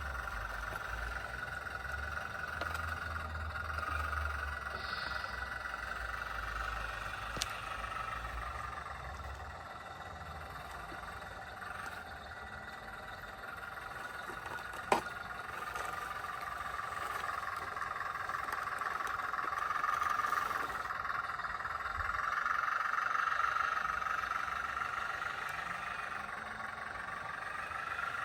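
Small electric motors of RC model construction vehicles whining, the pitch slowly rising and falling as they speed up and slow down, with a low rumble in the first part and two sharp clicks, the louder one about halfway through.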